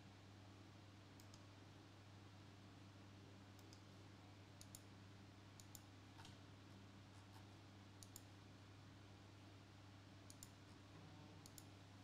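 Computer mouse clicking faintly about a dozen times at irregular intervals, many of the clicks in quick pairs, over a steady low hum.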